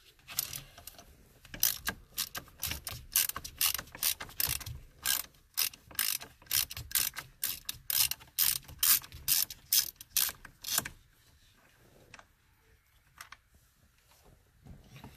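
Hand ratchet clicking in quick, uneven runs as a T50 Torx bit works the steering wheel's center bolt loose. It stops about eleven seconds in.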